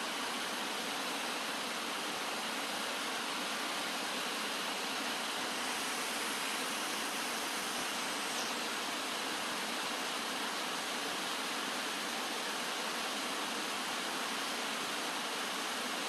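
Shallow stream running over stones and small riffles, a steady, even rush of water.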